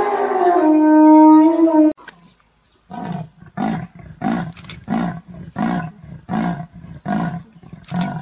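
An elephant's loud trumpeting call ends abruptly about two seconds in. After a short pause a leopard gives its sawing call, a series of about eight rough rasping grunts roughly 0.7 seconds apart.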